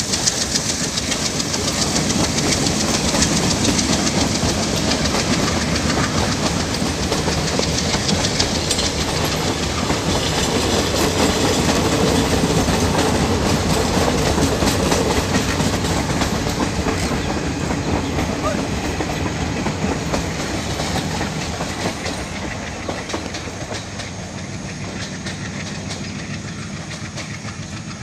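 Indian Railways passenger coaches rolling past at speed, their wheels clattering steadily over the rail joints, the sound fading in the last few seconds as the train draws away.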